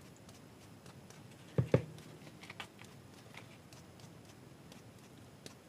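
Handling noise at a workbench: two quick knocks close together about a second and a half in, then a few faint light ticks and rustles.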